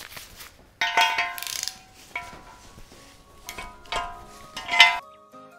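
Spark plug socket and extension clanking and ringing against a bare BMW M50 cylinder head while the plugs are unscrewed, in several separate metallic knocks. About five seconds in, background music takes over.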